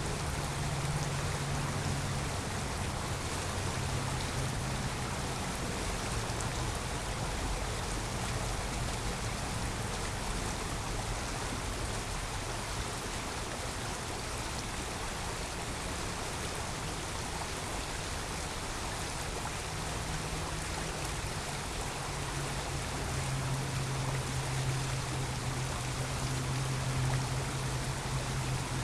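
Creek water running steadily, with a low hum underneath that fades and returns and is strongest near the end.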